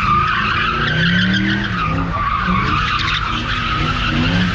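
A car's tyres squealing without a break as it does donuts, the engine revving up and down beneath the squeal.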